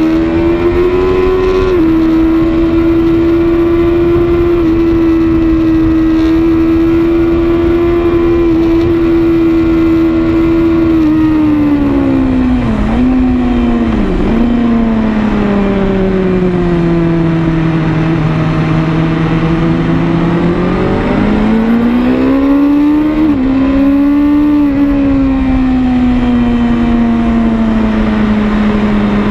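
BMW S1000RR's inline-four engine revving hard on a track lap. The engine note holds high, dips twice briefly about 13 and 14 seconds in, sinks lower through the middle, then climbs back and eases off a little near the end.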